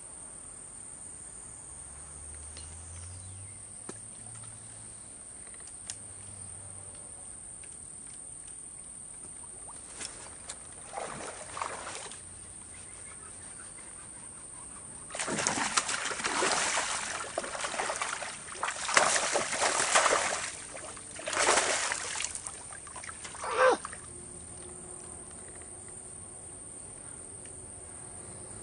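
Water splashing in bouts, with a run of heavy, churning splashes through the middle and one last sharp splash after it, over a steady high insect drone.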